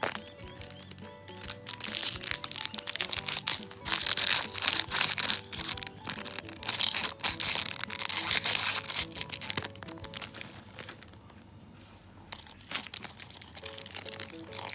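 Plastic wrapping of a LOL Surprise toy crinkling and tearing as it is unwrapped, loudest for several seconds in the middle, over background music.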